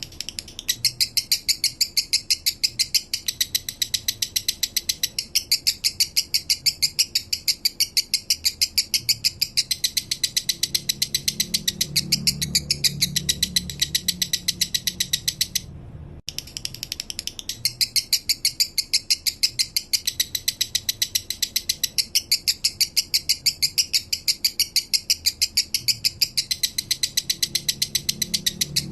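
Male lovebird singing the slow 'minor' song: a long, even run of rapid, sharp high chirps, several a second, broken by a short pause about sixteen seconds in.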